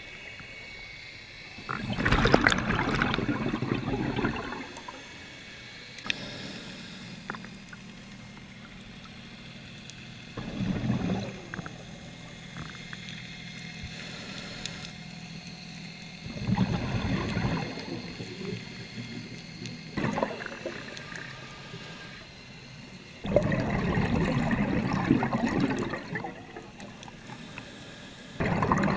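A scuba diver breathing on a regulator underwater: exhaled bubbles rush out in noisy bursts of a second or two, about every six seconds, with quieter stretches between breaths.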